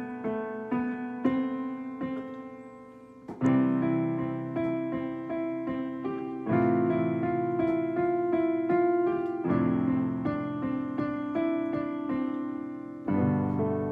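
Electronic keyboard played with a piano sound: sustained chords with a melody over them. The notes die away about two to three seconds in before a loud new chord is struck, and further strong chords come at about six and a half and thirteen seconds in.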